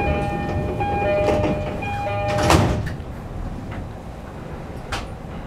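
Door-closing chime of a JR East E231 series commuter car, a repeating two-tone chime, then the sliding doors shutting with a thud about two and a half seconds in. A sharp click follows near the end, over the car's steady low rumble.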